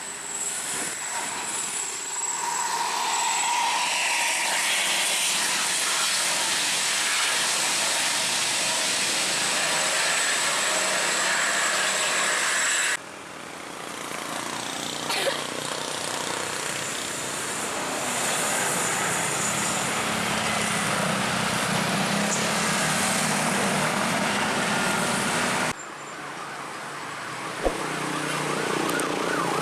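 Tour buses passing close by on a road: a loud, steady rush of engine, tyre and wind noise. It drops off abruptly twice, near the middle and near the end.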